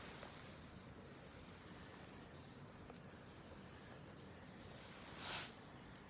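A small campfire of dew-damp wood burning faintly, with a few light high ticks and one short hissing rush about five seconds in.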